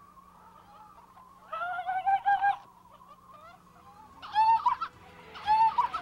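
Cartoon baby seal's voice: short, high-pitched cries in three bouts, the first about one and a half seconds in.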